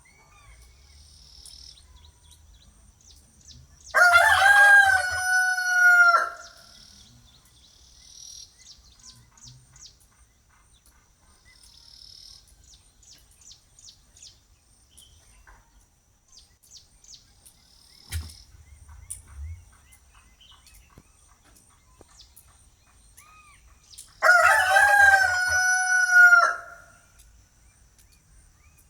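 Rooster crowing twice, about twenty seconds apart, each crow about two seconds long and falling in pitch at the end. Faint small-bird chirps come in between.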